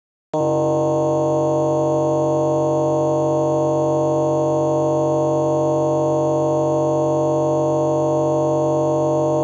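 A steady electronic chord, several held tones like a sustained synthesizer note, starts just after a moment of silence and holds without any change in pitch or loudness.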